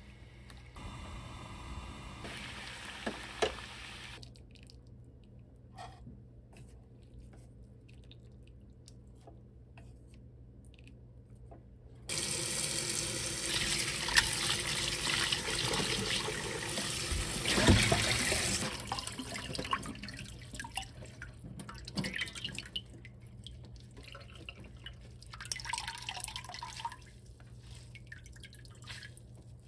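Tap water running onto blanched greens in a stainless-steel mesh strainer in a sink, coming on suddenly about twelve seconds in and easing off some seven seconds later. After it, scattered drips and splashes as the wet greens are squeezed out by hand. Before the tap comes on, only quiet sounds of the greens being stirred in a pot of hot water.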